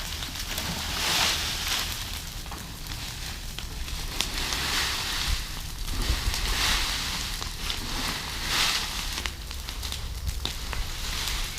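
A large pile of dry leaves burning after being lit with paint thinner: a rushing hiss that swells and eases every second or two, with many small crackles and pops throughout, over a low rumble.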